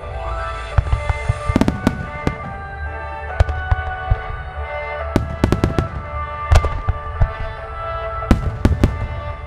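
Aerial fireworks shells bursting overhead: an uneven series of about fifteen sharp bangs, clustered in quick runs, the loudest about six and a half seconds in. Music with long held tones plays underneath.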